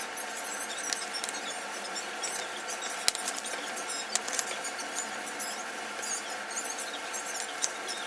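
A colouring pen squeaking and scratching on paper in many short strokes, with a few light taps.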